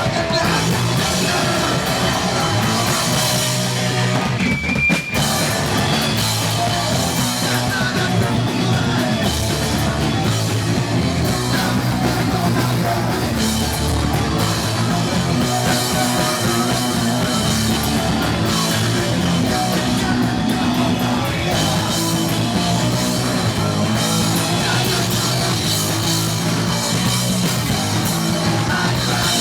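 Live punk rock band playing loudly: distorted guitars, bass and a drum kit, with some singing. There is one short break a little after four seconds.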